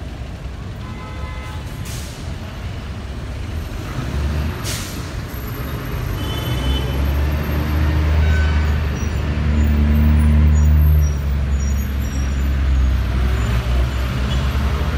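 Road traffic: car and bus engines running in a low rumble that builds to its loudest about eight to eleven seconds in, with a short hiss about five seconds in.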